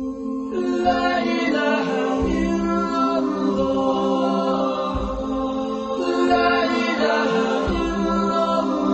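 Unaccompanied devotional vocal music, a nasheed: several voices singing together over a steady held low drone.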